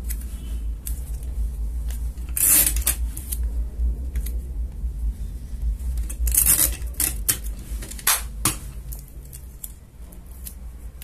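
Adhesive tape being pulled off a desk tape dispenser and card being handled: several short rasping strips, the loudest about two and a half and six and a half seconds in, over a steady low hum.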